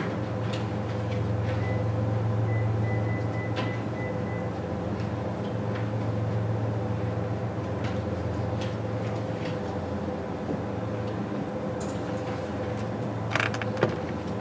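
Steady low electrical or mechanical hum with a few faint clicks and knocks, slightly sharper near the end.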